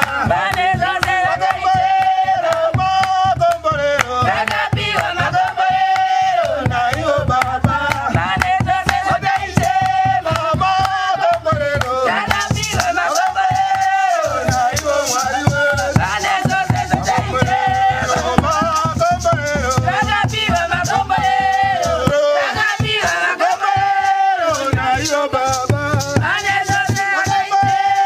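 A group singing together to hand clapping and a hand drum beaten by hand, with a rattle shaking in a steady rhythm.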